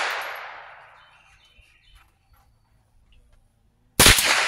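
Stevens 87A .22 rimfire semi-automatic rifle shooting: the echo of a shot fades out over the first second, a few faint ticks follow, and a second sharp shot cracks about four seconds in, its echo trailing off.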